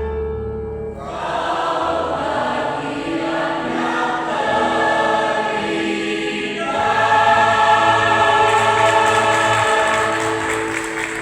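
Choir singing in sustained chords, ending on a long held chord that fades near the end.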